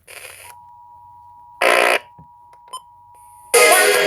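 Emergency Alert System attention signal: two steady tones sounding together, starting about half a second in. It marks the start of an alert relay on a monitored station. Short bursts of another broadcast's audio cut in over it, and the loudest comes near the end.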